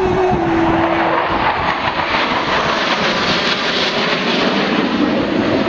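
Jet engine noise from a formation of F-16 Fighting Falcons flying overhead: a loud, steady rushing noise, with a held steady tone over it that stops about a second in.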